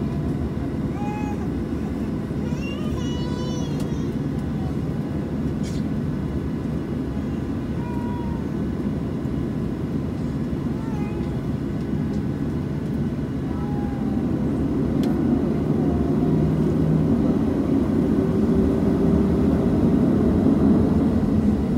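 Inside the cabin of a Boeing 737-700, the steady low rumble of its CFM56-7B jet engines and cabin air. It grows louder from about two-thirds of the way in, with a hum that rises slowly.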